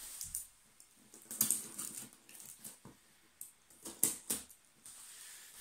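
Hands handling a cardboard shipping box: scattered scrapes and rustles on the cardboard, with a few sharp clicks about a second and a half in and around four seconds in.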